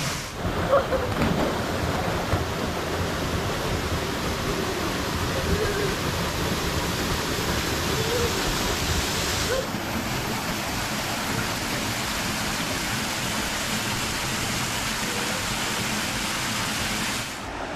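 Waterfall pouring into a rocky pool: a steady, even rush of falling water.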